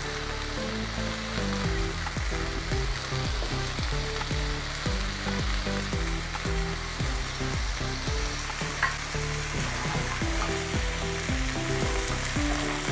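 Masala-coated chicken pieces sizzling in ghee in a nonstick pan, a steady frying hiss. Low background music plays underneath.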